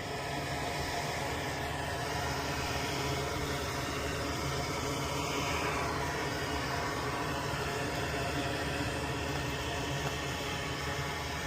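Electric desoldering tool running steadily: a whirring hiss over a low motor hum as the capacitor's two solder joints are freed from the circuit board.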